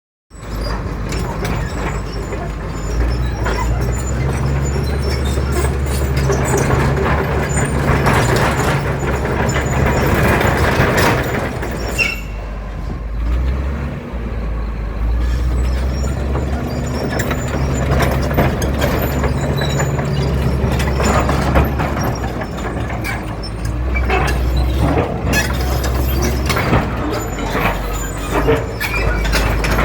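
Komatsu D65EX-15EO crawler bulldozer's diesel engine running, its note swelling and easing as the load changes, with repeated short metallic knocks and clanks through it.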